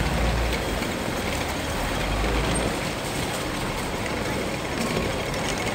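Busy city street in the rain: a steady low rumble of traffic under an even wash of rain and street noise, the rumble easing after about three seconds.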